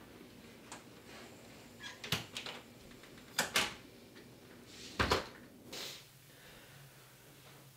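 A house's front door being opened and shut: a run of latch clicks and knocks, with the loudest knock about five seconds in.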